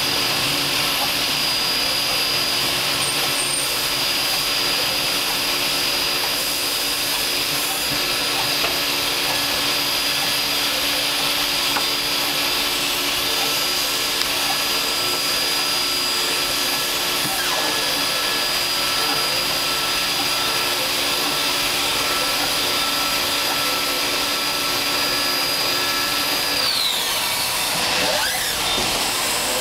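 Fadal CNC machining center running, a steady high spindle whine over machine hum and hiss as it cuts side-dot holes in guitar fretboards with a 1/16" end mill. About 27 seconds in the whine falls away as the spindle spins down.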